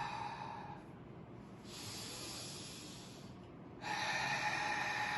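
A man's deep breathing for haa-breathing pranayama: a breathy 'haa' exhale through the open mouth fades out about a second in, a softer hissing breath in follows, and a second long 'haa' exhale begins near the end.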